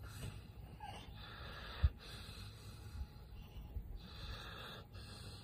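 A sleeping dog breathing heavily in long, slow breaths, with one short low knock just under two seconds in.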